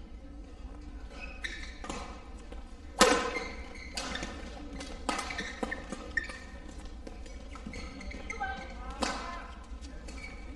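Badminton rally: racket strings striking the shuttlecock about once a second, echoing in the hall, the loudest hit about three seconds in.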